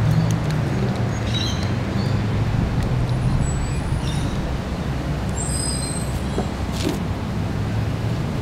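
Steady low engine rumble of a motor vehicle running nearby, with a few short high chirps about a second in and again around six seconds in.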